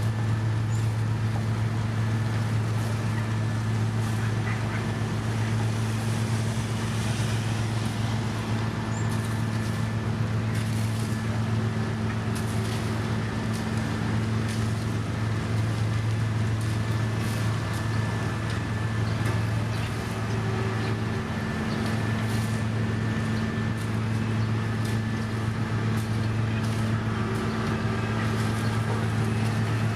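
Diesel engine of heavy road-construction machinery running at a steady speed, a constant low hum, with faint scattered clicks and rattles over it.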